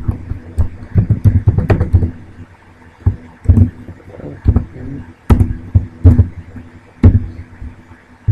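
Computer keyboard keystrokes and clicks close to the microphone: irregular thumping taps, with a quick run of them in the first two seconds and single strokes spaced out after that.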